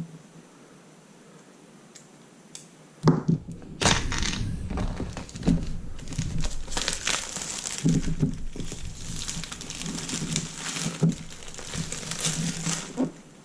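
Packaging crinkling and rustling as it is handled and opened, starting about three seconds in and going on irregularly.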